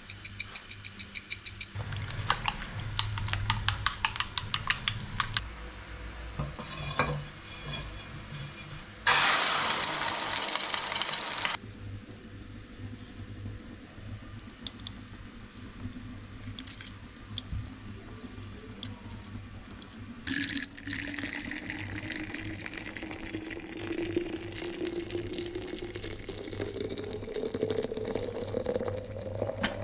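Kitchen cooking sounds. First a spoon beats eggs in a china plate with fast clicking, then water gushes loudly for about two seconds. Near the end comes a steady hiss with a tone that slowly rises in pitch.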